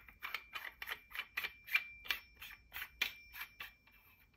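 Metal lightsaber emitter being screwed by hand onto the crossguard hilt's thread over a metal spacer washer: a run of light, even ticks, about three or four a second, over a faint steady high ring.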